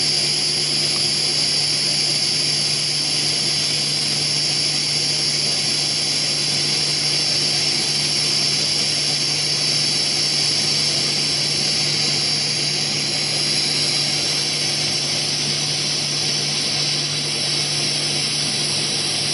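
TIG welding arc from a Miller Dynasty 300 DX inverter welder burning on steel, an even hiss with a low steady hum that holds without breaks.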